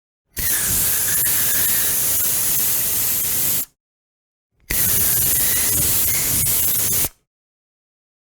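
Aerosol spray can sprayed in two long, steady hisses of about three seconds and two and a half seconds, with a second's pause between them. Each starts and stops abruptly.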